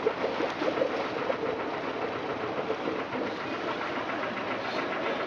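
Boat engine running steadily with a rapid rhythmic chugging, heard from aboard a small excursion boat.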